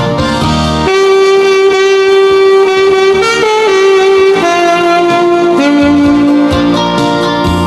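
Alto saxophone playing a slow melody of long held notes over a backing track, the notes stepping down in pitch through the second half.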